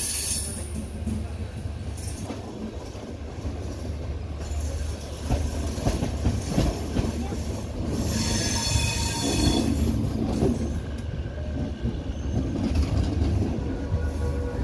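Passenger train rolling slowly over curved track and points, heard from on board: a steady low rumble with wheels knocking over rail joints, and a high-pitched wheel squeal at the start and again about eight seconds in.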